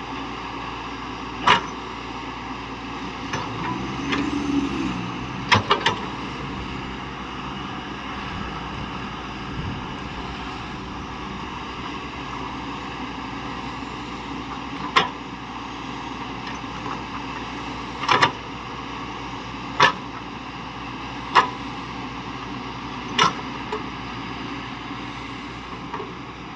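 Heavy earthmoving machinery, an excavator at work, with its diesel engine running steadily. The engine note rises and falls briefly about four seconds in, and sharp knocks come every few seconds.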